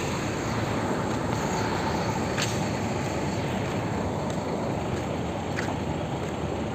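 Steady background noise of a busy bus terminal, buses and traffic running, with a few short sharp clicks scattered through it.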